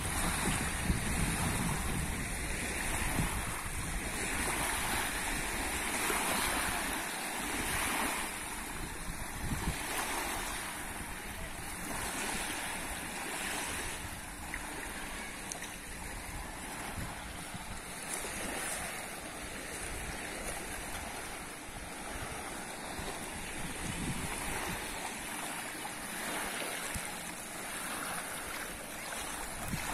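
Small waves lapping on a sandy reservoir shore, the wash swelling and falling back every second or two. Wind rumbles on the microphone underneath.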